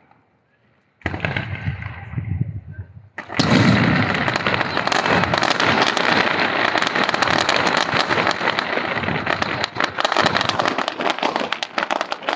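Consumer fireworks going off. After a silent first second, a dense, continuous crackle of many rapid sharp pops starts about three seconds in and keeps going.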